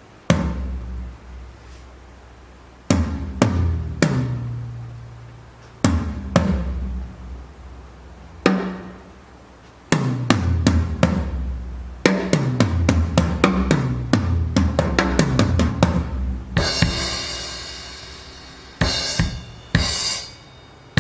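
Drum kit: single deep drum hits left to ring out a second or two apart, then a fast run of strokes in the middle, then a long cymbal crash wash and a few more hits near the end.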